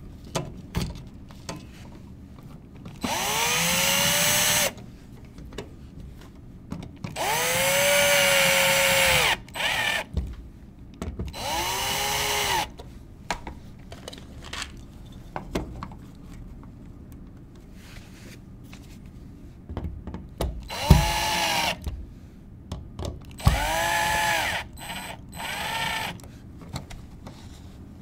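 Electric drill-driver running in about five short bursts, each spinning up and winding down, as it drives the GFCI outlet's mounting screws into the electrical box. Small clicks and handling noise fall between the bursts.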